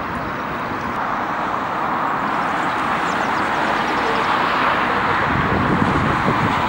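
Jet airliner engine noise: a steady, even rush that grows slowly louder.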